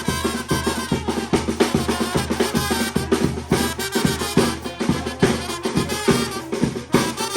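Costa Chica–style band music from Guerrero, with a drum kit keeping a steady, driving beat under pitched melody instruments.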